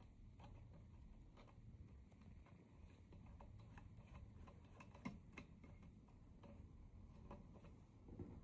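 Faint, irregular small metal clicks and ticks from fingers fitting a model locomotive's connecting-rod big-end bearing onto the crank pin and running on its lock nuts, over near silence; one slightly louder click about five seconds in.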